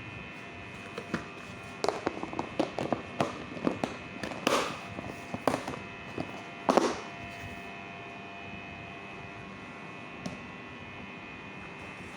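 A run of knocks and clatters from objects being handled, the loudest a little before the middle, over a steady electrical hum.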